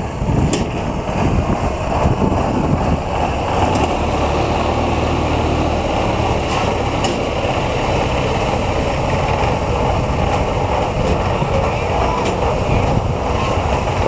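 Engine of a tracked rice-hauling carrier running steadily under load as the crawler climbs steel ramps onto a boat, with a few sharp clanks.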